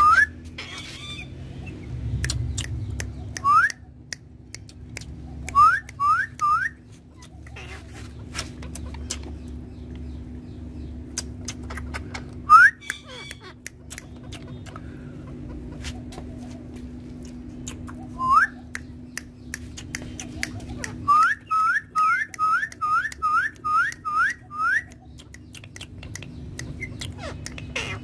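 Rose-ringed parakeets giving short, sharply rising whistled calls. A few come singly or in threes, then a quick run of about ten follows one after another near the end. Scattered sharp clicks sound in between.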